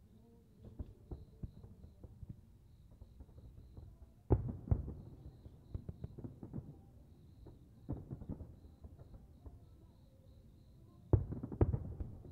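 Fireworks display: aerial shells bursting with low, echoing booms in clusters, the loudest about four seconds in and again near the end, with smaller pops and crackle between.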